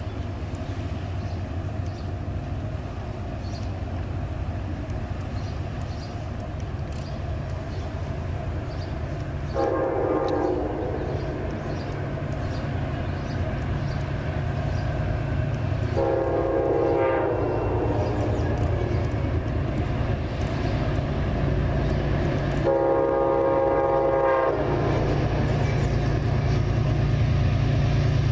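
Amtrak GE P32AC-DM diesel locomotive approaching and sounding its air horn three times: a short blast about ten seconds in, then two longer blasts. Its engine's low rumble grows louder as it nears.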